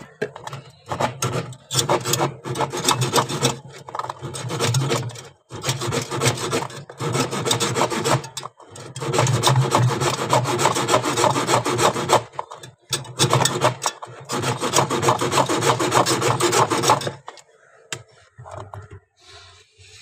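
Hand scrubbing against the metal fins of a refrigerator's evaporator coil: rapid scraping strokes in several long bursts with brief pauses, stopping about three seconds before the end.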